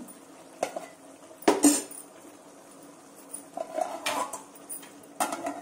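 Steel spatula knocking and scraping against a steel kadai and being set down on a steel plate: about five sharp metallic clinks, the loudest pair about a second and a half in.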